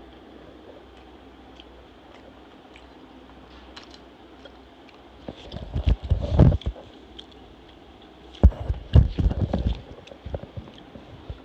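Close-miked eating sounds: chewing a mouthful of dhuska, a deep-fried rice-and-lentil bread, with potato curry, and fingers working the curry in a glass bowl. They come in two loud clusters of short, wet bursts, about six and about nine seconds in.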